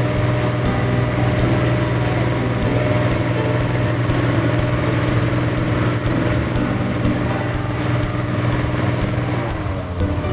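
Hot-air balloon inflator fan's small engine running steadily at a constant pitch.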